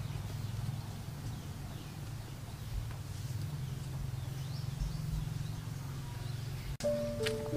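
Outdoor ambience: a steady low hum with faint high chirps. Music with held tones comes in abruptly near the end.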